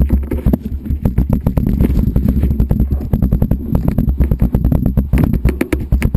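Close handling noise from a kite bar's safety-release assembly being worked by hand on a table: rapid, irregular clicks, knocks and rubbing of the plastic release sleeve and lines, with heavy low thumps carried through the tabletop.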